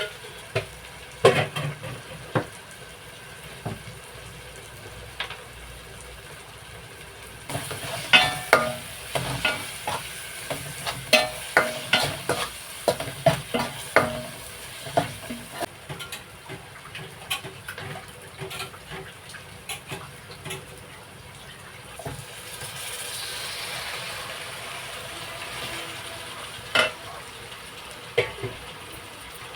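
A spoon stirring a masala frying in oil and ghee, scraping and knocking against the pan over a steady sizzle. The knocks come thick and fast for several seconds in the middle, then scattered, and the sizzle swells for a few seconds later on.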